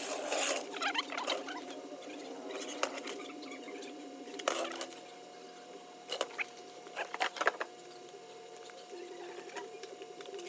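Scattered light clicks, taps and scratchy rustles of things being handled, over a steady faint hum.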